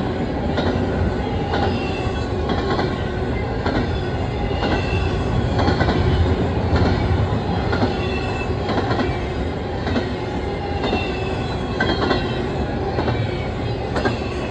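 Double-stack intermodal freight train rolling past at a grade crossing: a steady rumble with wheel clacks about once a second and faint squealing from the wheels.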